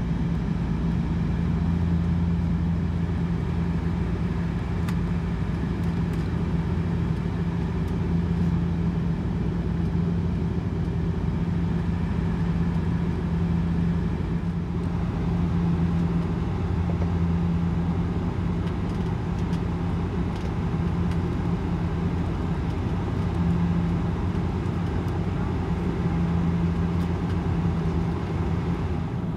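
Cabin drone of a Bombardier Q400 turboprop in flight, heard from inside the cabin: the steady running of its engines and six-bladed propellers, with a strong, even low hum over a broad rush of noise.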